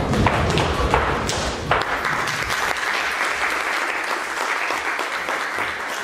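Dance music ends in the first couple of seconds, then an audience claps and applauds steadily.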